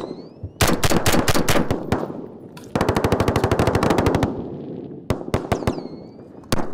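Automatic small-arms fire in a firefight. A fast burst comes about half a second in, a longer, very rapid burst from about three to four seconds, then scattered single shots near the end.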